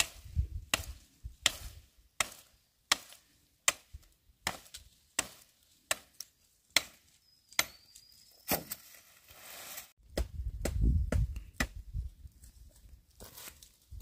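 Machete chopping into a bamboo pole: about ten sharp, evenly spaced strikes, roughly one every three-quarters of a second. After about eight seconds the strokes stop, and a low rumbling noise follows.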